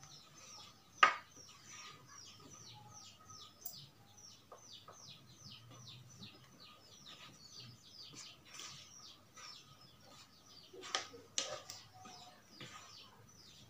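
A small bird chirping in a rapid run of short falling notes, several a second, dying away about two-thirds of the way through. A single sharp click about a second in, and a few more clicks and rustles near the end.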